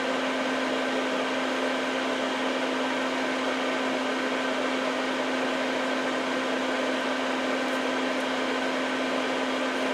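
Steady machine hum with a constant low tone, unchanging throughout.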